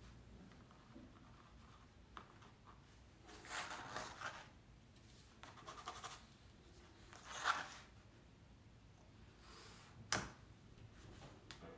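Pencil drawing lines along a ruler on a canvas: a few short scratching strokes, with a sharp tap near the end.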